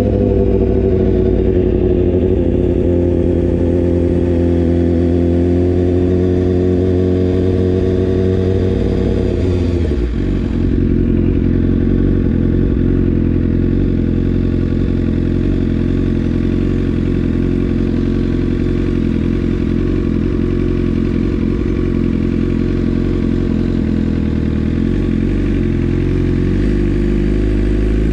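2018 BMW S1000R's inline-four engine running through a full Akrapovic exhaust while riding at low speed. The note eases slightly downward, dips briefly and changes about ten seconds in, then holds steady at low revs, shifting again near the end.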